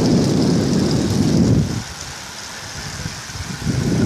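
Wind noise buffeting the microphone of a camera carried on a moving road bike, over a steady hiss of tyres and air. The low buffeting drops away for about two seconds in the middle, then comes back.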